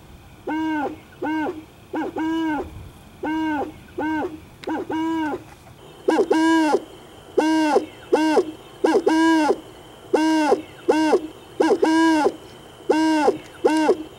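Owl hooting in a steady series of short hoots, each rising and falling in pitch, about one and a half a second. The hoots get louder from about six seconds in.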